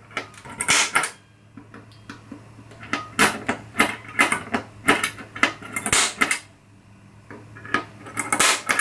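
Centre punch marking hole positions on a sheet-metal cabinet door through the holes of a template plate: a dozen or so short, sharp metallic clicks and brief scrapes at uneven intervals.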